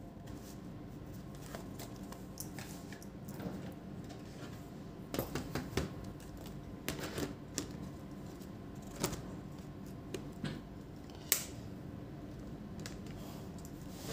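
Scattered light clicks and taps of hands handling small tools and a laptop's plastic base on a workbench, in small clusters, with one sharper click near the end, over a steady low hum.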